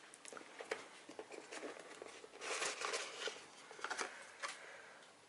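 Cardboard and paper packaging of a phone box rustling and clicking faintly as it is handled, with a louder stretch of rustling in the middle.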